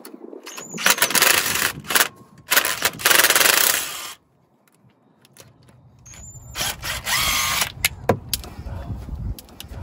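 DeWalt 18-volt cordless driver with a socket spinning the 10 mm bolts out of a truck's 4x4 actuator in short runs: two bursts in the first four seconds, a pause, another burst at about seven seconds, then a few clicks.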